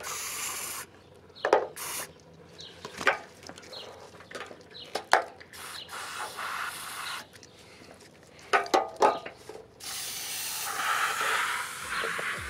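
Aerosol can of silicone spray hissing in several short bursts and one longer spray near the end, as lubricant goes into a sail boom's outhaul runner that has been sticking. A few sharp knocks and clicks come between the bursts.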